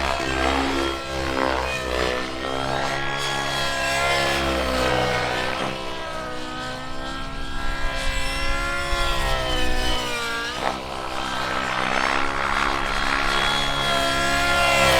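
O.S. .91 nitro engine with a tuned pipe running on a radio-controlled model in flight. Its pitch keeps rising and falling as the throttle changes, with a sharp drop and recovery a little after ten seconds in.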